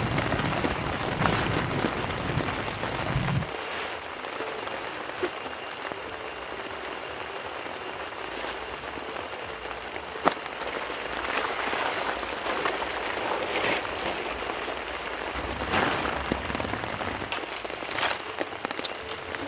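Steady rain falling, with a low rumble in the first few seconds and a few sharp ticks later on.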